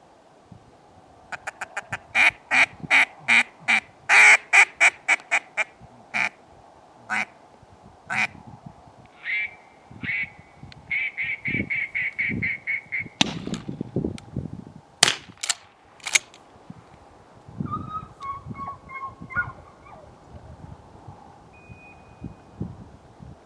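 Duck calls blown in quick series of quacks, one loud and close, one a little later, and a fainter, more distant one near the end, with a few sharp cracks in between. These calls draw a retriever's attention to where each mark will be thrown.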